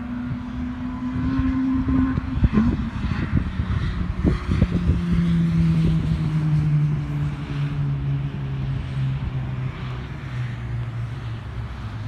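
Two street-race cars, a Toyota Conquest followed by a Toyota RSi, running flat out down the road past the listener. The engine note swells to a peak with a burst of sharp crackles a few seconds in, then drops in steps and fades as they pull away.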